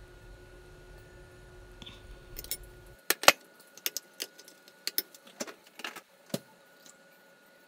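Sharp clinks and clicks of glass seasoning bottles and their caps being handled while fried rice is seasoned, a dozen or so scattered taps with the loudest about three seconds in. A low steady hum underneath cuts off just before the clinking starts.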